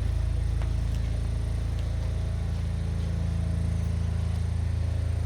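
An engine running steadily at an even speed, a low hum with a fine regular pulse.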